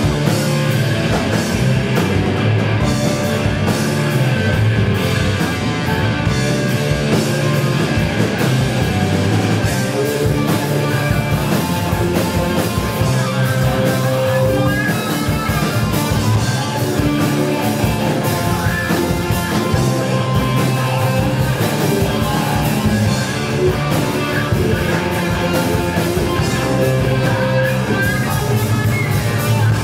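Live rock band playing at full volume: electric guitar through amplifiers, bass guitar and a drum kit keeping a steady beat.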